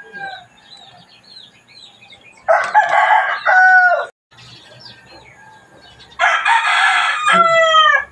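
A rooster crowing twice, each crow about a second and a half long and ending in falling notes. Small birds chirp faintly between the crows.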